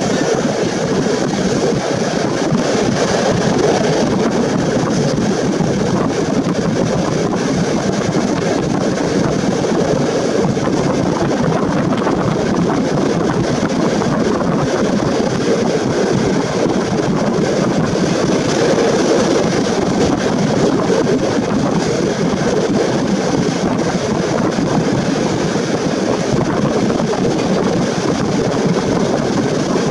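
Passenger train carriage running steadily on the rails, an even rumble and rush of wheel and air noise heard at an open window, with no break or change.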